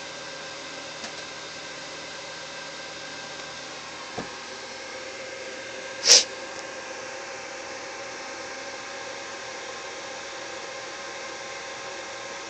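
Steady low room hum, broken by a faint click about a second in, a soft knock about four seconds in, and one short, sharp hissing burst about six seconds in, much louder than the rest.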